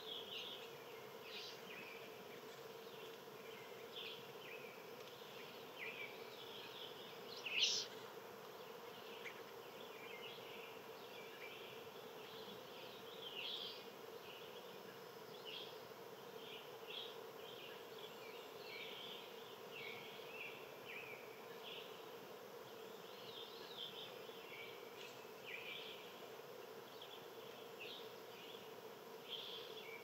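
Faint outdoor ambience of scattered short bird chirps, with one louder call about eight seconds in, over a steady low buzzing hum.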